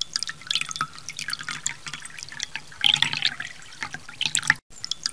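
Water drops dripping and plopping at an irregular pace, as raindrops falling onto water, cutting out for a moment near the end.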